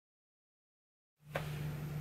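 Dead silence, then a little over a second in, quiet room tone starts: a steady low hum under a faint hiss, with one small click just after it begins.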